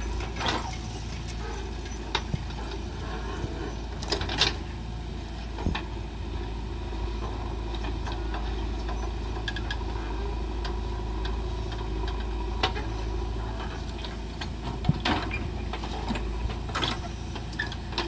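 JCB 3DX backhoe loader's diesel engine running steadily as its backhoe arm digs and dumps soil. Several sharp knocks and clanks break through, two close together about four seconds in.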